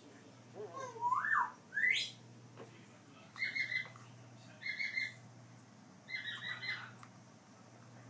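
A baby African grey parrot calling: a curving call and then a steep rising whistle, followed by three short buzzy calls spaced about a second apart.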